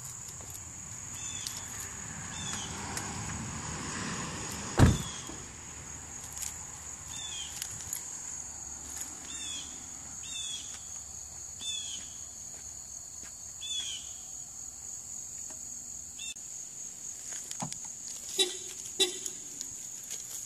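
Outdoor insect chorus, a steady high buzz, with a short chirping call repeating about once a second, and one sharp thump about five seconds in.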